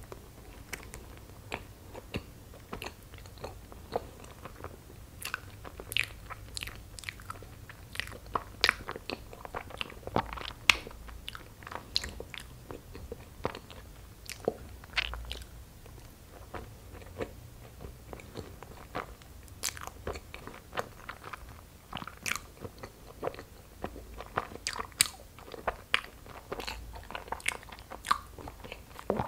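Close-miked chewing of soft cream-cheese-filled injeolmi rice cakes, with many small, irregular mouth clicks.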